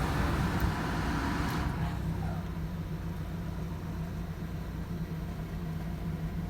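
Hyundai Santa Fe's six-cylinder engine idling steadily with no misfire, running on new ignition coils and plugs. A broader hiss over the idle cuts off about a second and a half in.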